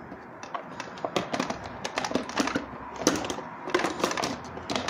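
Hard plastic lid of a Ninja blender pitcher clicking and knocking against the jar's rim in quick, irregular taps as it is pushed and turned, not seating or locking into place.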